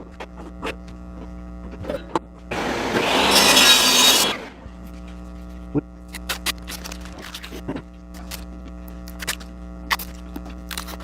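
Steady electrical hum, with one harsh rasping burst lasting under two seconds about three seconds in, like a short cut or sanding pass on plexiglass. Scattered light clicks and taps follow from handling the plastic.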